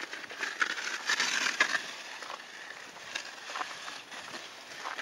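A sled being dragged over a thin layer of snow on pavement, scraping and crunching, with the crunch of footsteps in snow. It is loudest about a second in.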